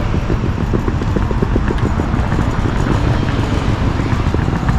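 Road traffic on a city street, with cars passing, under a steady choppy low rumble of wind buffeting the microphone.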